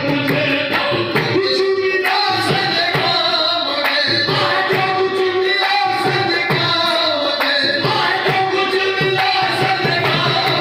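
Qawwali: sung vocals over steady drum percussion, continuous and loud.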